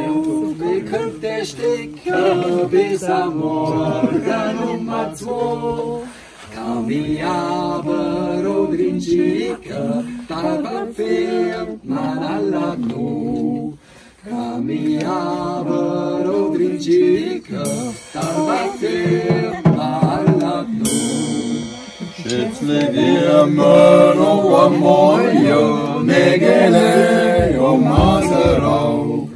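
A small group singing a German-language folk song together in several-part harmony, in phrases separated by short breaths.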